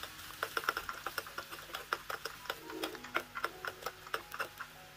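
Chopped onion frying in coconut oil in a small pan while a steel spoon stirs it: quick, irregular light clicks and crackles, several a second, stopping near the end.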